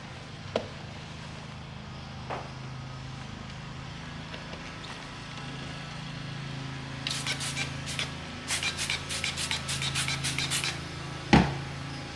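Rapid scratchy scrubbing strokes on a leather ball glove, about three or four a second for a few seconds past the middle, with a few light clicks and one sharp knock near the end. A steady low engine hum runs underneath.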